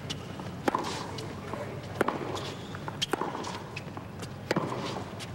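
Tennis rally on a hard court: the ball is struck back and forth, making about four sharp knocks a second or so apart, with the players' footsteps on the court between strokes.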